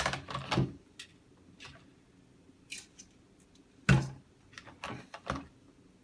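Scattered clicks and knocks of the Dyson fan's plastic parts and wiring being handled and fitted together by hand, the loudest a knock about four seconds in.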